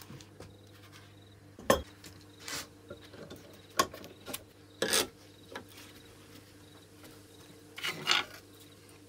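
Hand work on a rusted steel wrench: a sharp metal knock about two seconds in, then several short, irregular scraping strokes. A steady low hum runs underneath.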